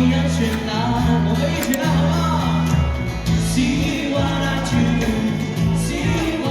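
Live band music with a singer, over a steady bass line.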